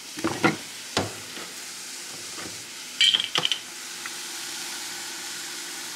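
Diced nopales sizzling in a frying pan, a steady hiss with a few sharp clicks and knocks of handling in the first second. A short burst of crackling comes about three seconds in.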